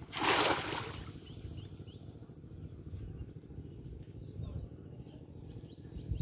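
A cast net landing on pond water: one loud splash from the net and its weighted rim, lasting under a second, just after the start. A low steady rumble follows.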